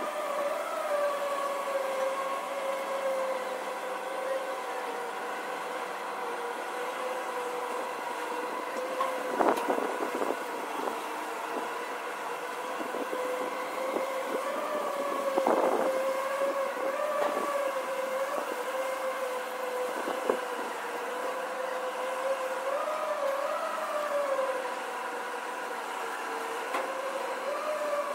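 The SLJ900/32 mobile bridge erecting machine running as it retracts, a steady machine drone whose pitch wavers slightly up and down. Three short knocks come near the middle.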